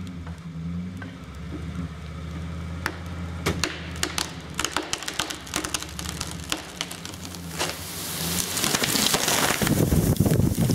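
A cedar tree's trunk cracking and snapping as the pull line draws it over, the cracks starting a few seconds in and coming faster and faster. Near the end it comes down with a loud rushing crash of limbs through the surrounding branches. Under the first part a truck engine runs steadily as it takes the strain on the line.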